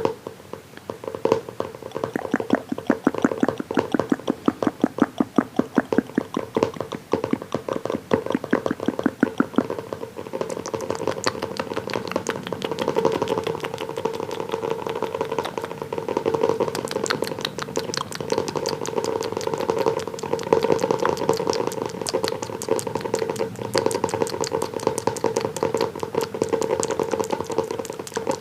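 Fast, continuous ASMR tapping on an object that rings with a steady hum under the taps. The taps become denser and brighter about a third of the way through.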